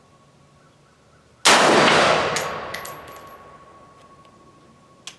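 A single rifle shot from a retro-style AR-15 (Colt 601 pattern) about a second and a half in, with a long echo rolling away over the next two seconds. A short click follows near the end.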